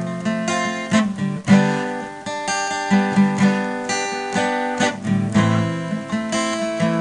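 Instrumental music on strummed acoustic guitar, with chords changing every second or so.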